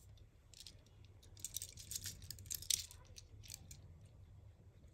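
Faint handling noise from a Tomica toy truck and its trailer being turned over in the hands: a scatter of small plastic clicks and light rattles, busiest around the middle, over a low steady hum.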